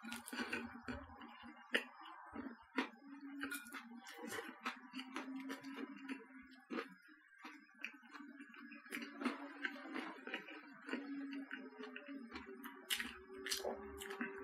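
Chewing and biting into a crusty baguette sandwich: irregular crisp crackles and clicks of the bread crust, scattered throughout.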